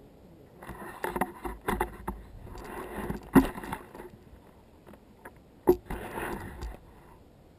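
Mountain bike riding fast down a gravel trail: tyres crunching over the surface and the bike rattling and knocking over bumps, in two spells, with a sharp knock a little past the middle and another near the end.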